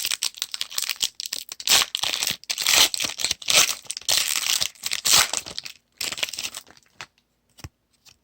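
A baseball card pack's wrapper being torn open and crinkled by hand: a dense run of tearing and crackling that stops about two-thirds of the way in, followed by a few faint ticks.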